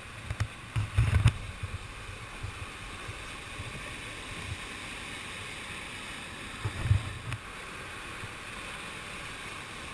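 Whitewater rapids rushing steadily, with a few low dull thumps about a second in and again near seven seconds.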